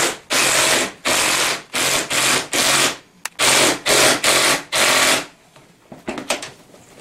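Ratchet wrench tightening down the nut on a scooter's steering column bolt: about eight quick, even ratcheting strokes in five seconds, then it stops, with a few light clicks near the end.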